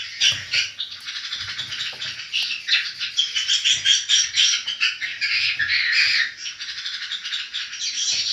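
Many swiftlets chirping together in a dense, continuous twittering chorus of rapid high chirps.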